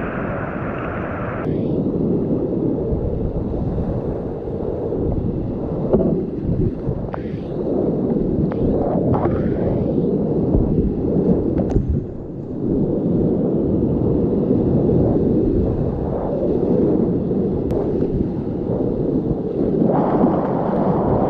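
Whitewater rapids rushing and churning close around a kayak as it is paddled through, a steady low rush with wind buffeting the microphone. A few short, sharp splashes from paddle strokes and waves break through in the middle.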